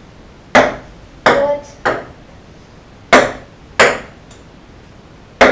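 A ping-pong ball bouncing on hard wooden surfaces: six sharp clicks, irregularly spaced.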